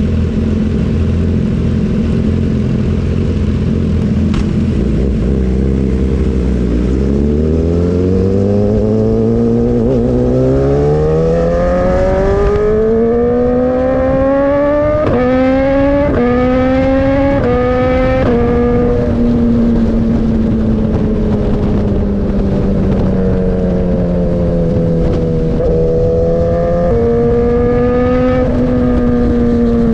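BMW S1000RR's inline four-cylinder engine through an Austin Racing GP1R full Inconel exhaust. It runs at a steady note, then accelerates hard with the pitch climbing and several quick steps around the middle. It then eases off with the note slowly falling, and picks up briefly near the end.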